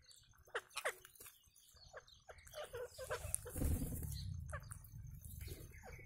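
A flock of rose-ringed parakeets giving short, sharp calls at scattered intervals. A low rumbling noise joins in about halfway through.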